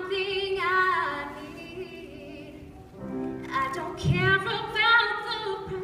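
A madrigal choir singing: a woman's solo voice with vibrato over lower voices holding steady notes beneath. The phrase eases off about halfway and a new phrase starts soon after.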